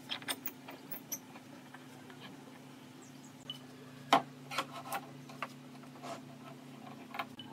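Steel pipe clamps knocking and clicking against pine boards as they are laid across the panel and their jaws slid into place; a sharp knock about four seconds in is the loudest, followed by a run of lighter clicks. A low steady hum runs underneath.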